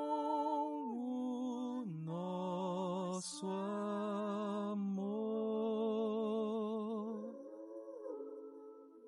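Closing bars of a love-song duet: long held sung notes with vibrato, stepping from pitch to pitch, fading out near the end.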